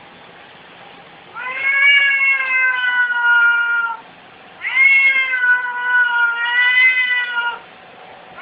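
Domestic cats squaring off to fight, one giving two long, drawn-out yowls of about three seconds each with a short pause between: threat caterwauling in an aggressive standoff.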